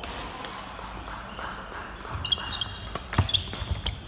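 Badminton doubles rally on a wooden sports-hall court: sneakers squeak sharply on the floor from about two seconds in, with a couple of sharp racket smacks on the shuttlecock about three seconds in.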